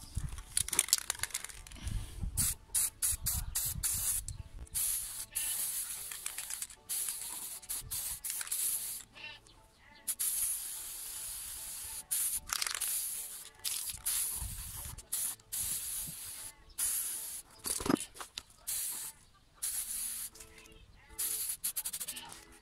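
Aerosol spray-paint can hissing in many bursts, short and longer, with brief gaps between them, as paint is sprayed onto a steel wheelbarrow wheel rim.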